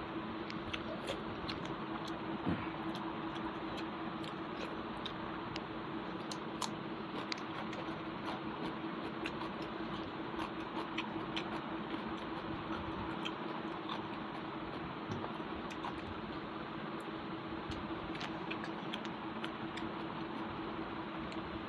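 Eating by hand close to a lapel microphone: scattered small clicks of chewing and mouth sounds, and fingers working rice and fish curry on a steel plate, over a steady low hum and hiss.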